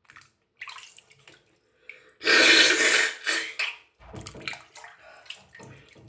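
Bath water sloshing and splashing as someone shifts about in a bathtub, in irregular bursts, the loudest lasting nearly a second about two seconds in.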